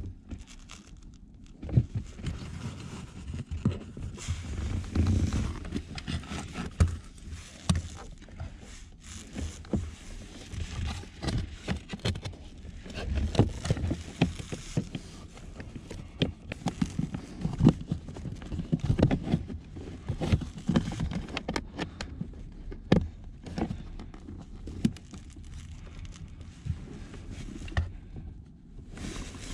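Hands fitting a cabin air filter and its plastic housing cover under a Mercedes-Benz SLK's dashboard: irregular clicks, knocks and scrapes of plastic parts, with rustling handling noise.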